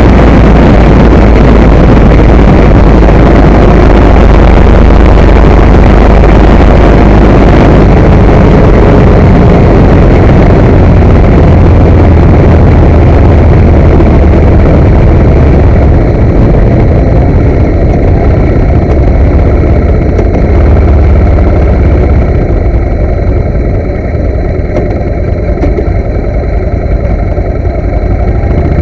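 Ducati 916 motorcycle's 90° V-twin engine running at speed, with heavy wind rush over the onboard microphone. About halfway through, the wind hiss eases and the level drops a little.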